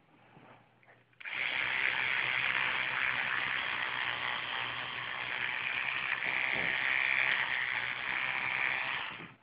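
Electric toothbrush switched on about a second in, buzzing steadily while brushing a dog's teeth, then switched off near the end.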